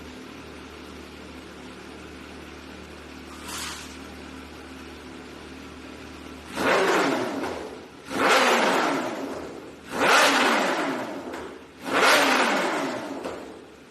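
Kawasaki H2 motorcycle with a Vandemon full-system exhaust idling steadily, with a small throttle blip a few seconds in. Then come four sharp revs about two seconds apart, each rising quickly and dying back toward idle.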